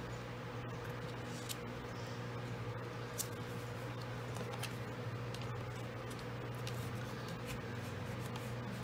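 Paper being folded and creased flat by hand, heard as scattered soft rustles, rubs and light taps over a steady low hum.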